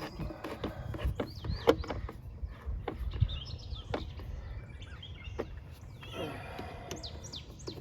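Birds chirping in short high calls, with a few sharp clicks and knocks scattered through, over a low steady outdoor rumble.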